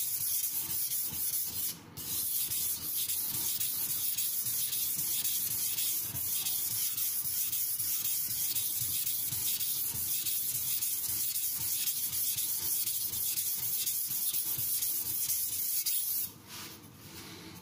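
Shirogami carbon-steel nakiri blade being stroked back and forth on a wet, coarse King 300-grit whetstone: a continuous gritty scraping hiss, with a short break about two seconds in. It stops shortly before the end.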